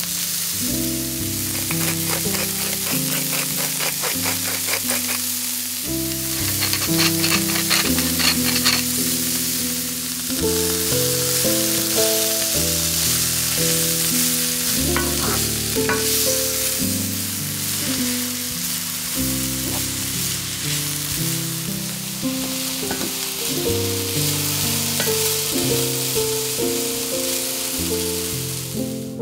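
Red bell pepper, carrot and red onion strips sizzling as they fry in a nonstick pan, stirred with a wooden spatula. The stirring strokes are quickest in the first third. Soft background music with changing notes plays throughout.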